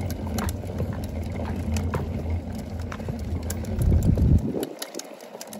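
Wheels of a pulled cooler rolling over concrete, a steady low rumble with scattered clicks and footsteps; the rumble drops away about four and a half seconds in.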